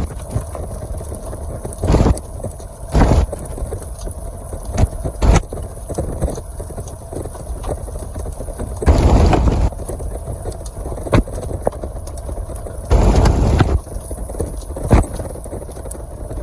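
Wind buffeting the microphone: a steady low rumble broken by irregular heavy thumps as gusts hit, the strongest about nine and thirteen seconds in.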